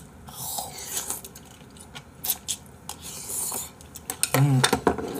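Eating and table noises: rustling and scraping with light clicks of utensils and dishes. A short voiced sound comes about four and a half seconds in.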